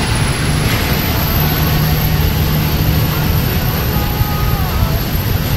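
Semi truck's turbocharged diesel engine running under way, heard from inside the cab, with a high thin turbo whistle that rises briefly at the start and then holds steady over the engine and road noise.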